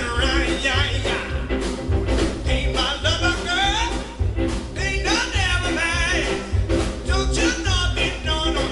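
Live rockabilly band: a man sings over electric guitar, plucked upright bass and drums, with a steady driving beat.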